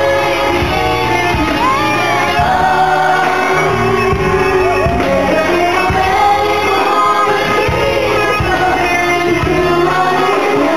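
Live pop concert music: a male singer singing into a microphone over a live band, heard from the audience with the echo of a large arena.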